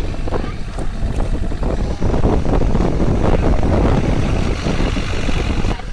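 Kobelco SK30-8 mini crawler excavator running, a loud, rough, steady low rumble of its engine.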